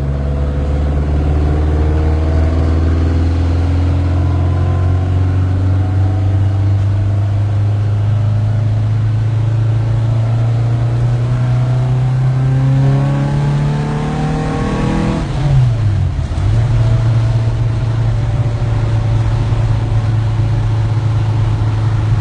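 Volkswagen engine running steadily, its pitch climbing slowly, then dipping sharply about fifteen seconds in and coming straight back up to a steady run.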